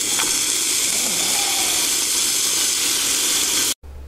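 Bacon sizzling in a small frying pan on a camping gas stove: a steady hiss that stops abruptly near the end.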